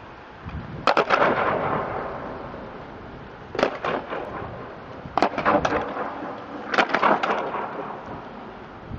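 Skateboards banging loudly onto the ground four times, each a quick clatter of several clacks with a long, booming echo under a bridge.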